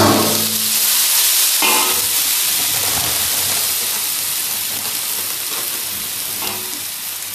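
Wet boiled instant noodles sizzling in a hot steel wok just after being tipped in, the sizzle loudest at first and slowly dying down. The steel ladle knocks against the wok a couple of times.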